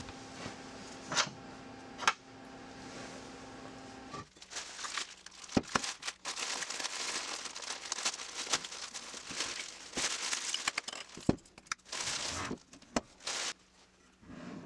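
Clear plastic packaging crinkling and rustling as a new BMW E46 front lower control arm is unwrapped by hand, with scattered sharp clicks and knocks. A faint steady hum with a couple of clicks comes before it, and the rustling stops near the end.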